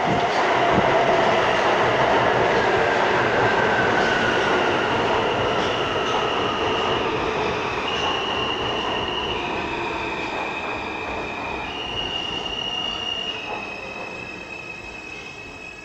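A New York City Subway L train running into the station and braking to a stop, with steel wheels on rail and a falling motor whine. From about five seconds in, a run of high propulsion tones steps up and down in pitch as the train slows, and the noise fades toward the end.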